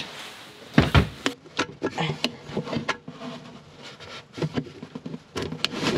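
Hands twisting and pulling a plastic bilge pump loose from its snap-on strainer base: a run of irregular plastic knocks, clicks and rubbing.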